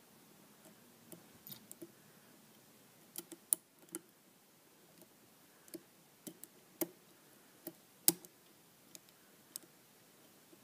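Irregular small metallic clicks of a steel pick working the pins of a pin-tumbler lock held under light tension, with a few sharper clicks standing out.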